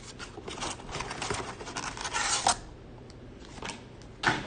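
Panini Contenders blaster box being torn open: cardboard flaps pulled back and foil-wrapped card packs slid out, rustling and crinkling, loudest about two and a half seconds in. Quieter handling follows, then a short sharp knock near the end.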